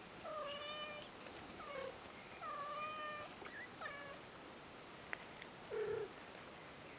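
Newborn Persian kittens mewing: several thin, high calls, two of them held for about a second, then a lower, shorter call near the end.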